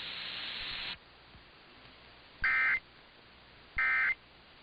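Emergency Alert System end-of-message (EOM) data tones: after about a second of radio hiss, two short, identical buzzy data bursts about a second apart, signalling the end of the flash flood warning broadcast.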